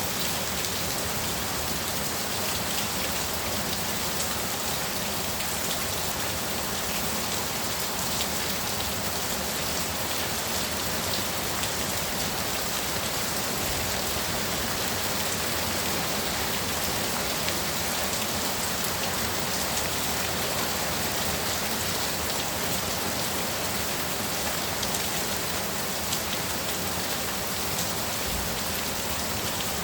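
Heavy downpour: dense, steady rain with a fine patter of drops and no change in strength.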